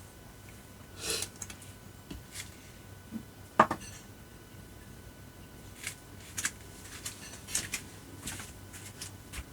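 Scattered light rustles and small clicks of hands working over a person's body and clothing during a hilot massage, with one sharp click about three and a half seconds in.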